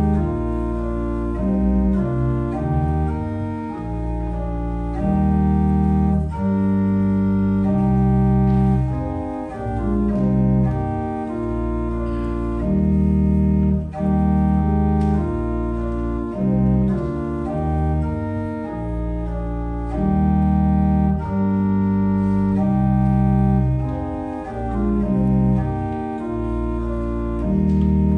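Berghaus pipe organ playing full sustained chords over deep pedal notes, the chords changing every second or so in phrases with brief breaks between them.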